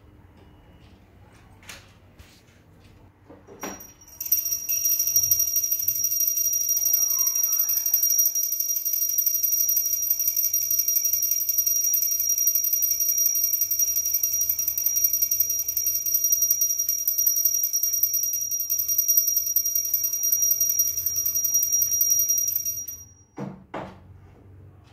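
A small brass puja hand bell rung rapidly and without a break, a bright high ringing for about eighteen seconds, the ritual ringing at the shrine as the lamp is lit. A couple of soft knocks come before it starts, and it stops a couple of seconds before the end.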